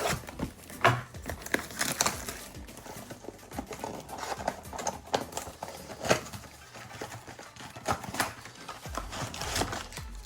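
Plastic and foil wrappers of trading-card packs and mega boxes being torn open and crumpled: irregular crinkling and crackling rustles.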